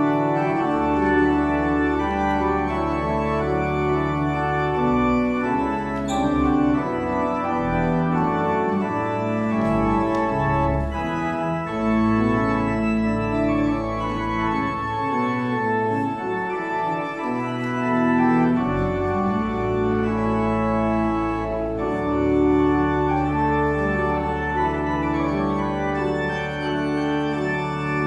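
Church organ played from a multi-manual drawknob console: sustained chords over long, deep pedal bass notes, the harmony changing every second or two, with the bass dropping out briefly about halfway through.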